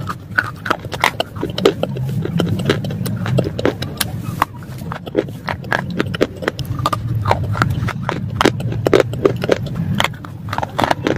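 Close-miked crunching as a person bites into and chews a hard black clay bar, a rapid, uneven run of sharp cracks and crumbles.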